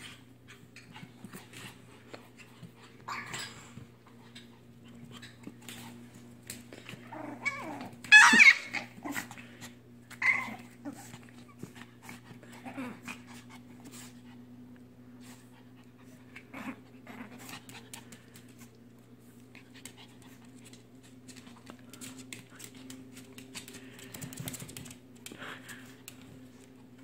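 Two Pomeranians squabbling over a dog bed: growls and short snarling outbursts, the loudest about eight seconds in and another near ten seconds, over a steady low hum.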